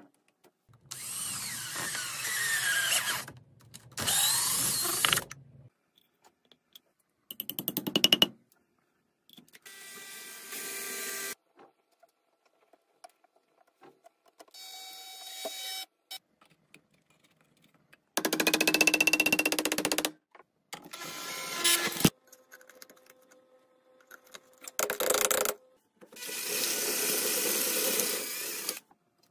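A string of separate power-drill runs, each lasting one to three seconds, with short silences between them. The drill is driving screws, and near the end a bit bores into wood for about three seconds.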